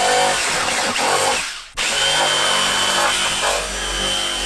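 Jigsaw cutting a quarter-inch poplar board. It stops briefly about a second and a half in, then runs again with a steady high whine.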